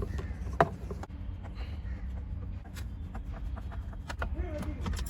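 Screwdriver undoing the screws that hold a car's climate control unit: scattered small clicks and scrapes, with one sharper click about half a second in, over a steady low rumble.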